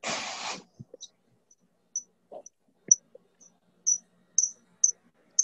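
A half-second hiss, then short, high-pitched chirps repeating about twice a second and growing louder from midway, with a few faint clicks among them.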